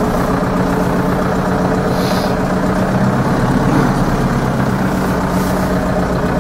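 Zetor 7245 tractor's four-cylinder diesel engine running steadily as the tractor is driven slowly, heard from inside the cab.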